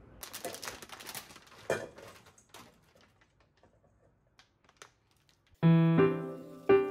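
A quick flurry of clicks and rustles with one sharper thump, from objects being handled, dying away to a few faint ticks and near silence. Then background piano music starts suddenly about five and a half seconds in and is the loudest sound.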